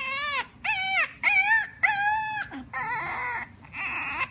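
French bulldog puppy making a run of short, high whining calls, about six in a row, each bending up and then down in pitch; the last two are hoarser.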